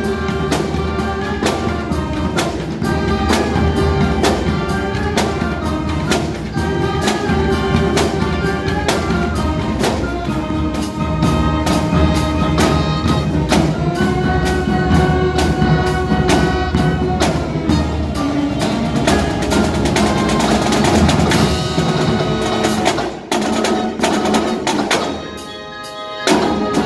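Pep band playing: saxophones and brass over bass drums, snare drums and congas, with a steady driving beat. The music drops out briefly near the end before the band comes back in.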